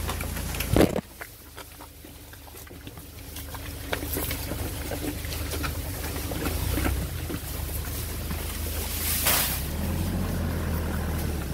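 Wind rumbling on a handheld phone's microphone, with handling bumps and clicks as the phone is moved about. There is a loud knock just under a second in.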